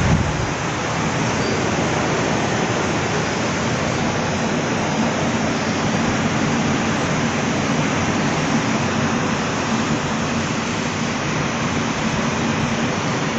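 Heavy rain falling: a loud, steady, dense hiss.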